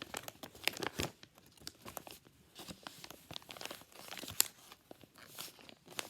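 Hands crinkling and crackling plastic and paper wrapping, with many irregular small clicks and one sharp snap about four seconds in.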